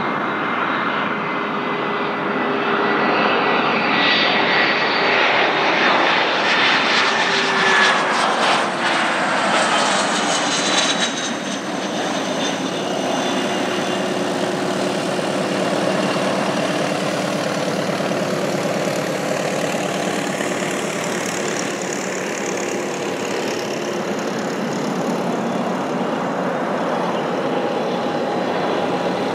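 Cessna 680 Citation Sovereign's twin turbofan engines on landing, loudest as the jet passes about four to ten seconds in, where the engine whine falls in pitch. Then comes a steady rushing engine noise as it rolls out down the runway.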